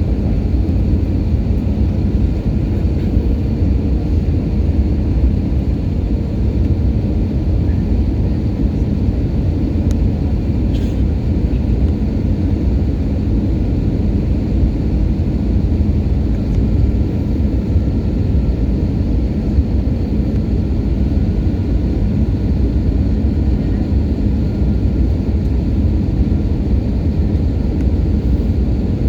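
Steady low rumble of an Airbus A320's engines and airflow as heard inside the passenger cabin during the approach to landing.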